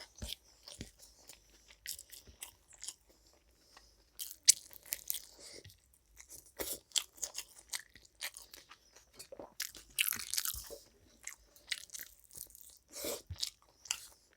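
Close-miked chewing and crunching of food, in irregular bites and chews, with a sharper crunch about four and a half seconds in and a busier stretch around ten seconds.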